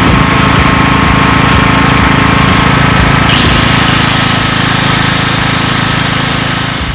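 Champion CEM13000 gasoline generator's 500cc engine running steadily, loud and close-up with a rough, rapid chatter. About halfway in, a thin high whine rises and then holds steady.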